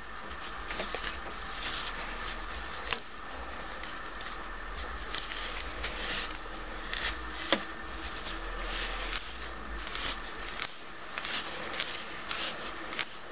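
Cast-iron holder being screwed by hand onto the M18×1.5 threaded nose of a rotary tool: irregular rubbing and scraping of the threads, with a few sharp clicks and knocks.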